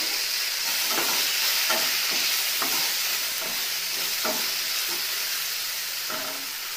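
Eggplant pieces sizzling as they fry in hot oil in a nonstick kadai, a steady frying hiss, with about seven short scrapes and knocks as the pieces are turned over with a spatula.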